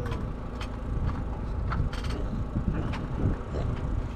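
Wind rumbling on the microphone, with scattered knocks and clicks.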